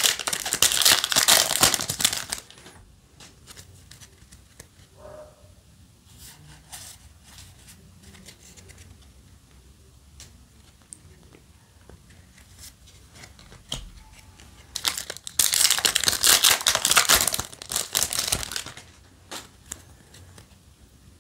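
Foil Yu-Gi-Oh! booster pack wrapper crinkling as it is torn open. Then come faint soft clicks of trading cards being handled, and a second loud burst of foil crinkling about fifteen seconds in.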